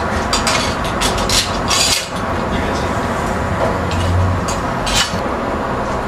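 Metal aerial-mast poles and clamps being handled: several short clinks and scrapes in the first two seconds and another about five seconds in, over steady background noise.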